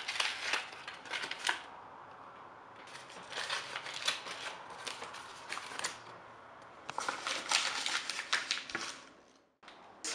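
Sheets of paper being crumpled by hand, crackling in three bouts with short pauses between.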